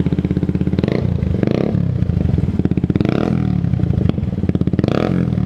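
Yamaha R15's single-cylinder four-stroke engine idling through an Akrapovic slip-on exhaust on a resonator elbow, with no silencer insert fitted. The throttle is blipped in about four short revs.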